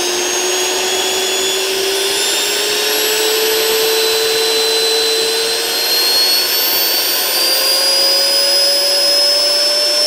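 Perfect 10-litre commercial vacuum cleaner's motor running on reduced voltage from a variac, its whine rising steadily in pitch as the voltage is turned up during a test for a short.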